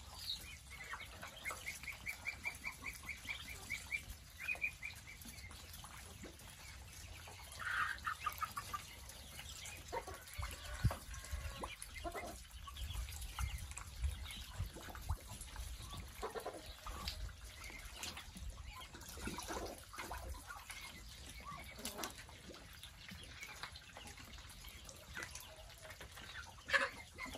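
Ducklings and chickens calling in a poultry pen. A quick run of high, evenly spaced peeps comes in the first few seconds and a short burst of calls about eight seconds in, then scattered peeps and clucks. A low rumble runs through the middle.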